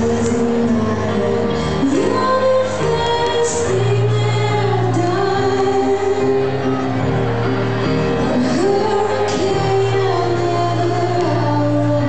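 Band playing a song live with singing over it, loud and continuous, with held sung notes that slide between pitches.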